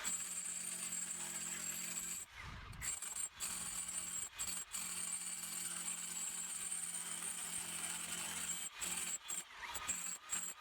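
Milwaukee M18 Fuel SDS-MAX rotary hammer running steadily, chiseling with a scaling chisel, cut by a few brief stops.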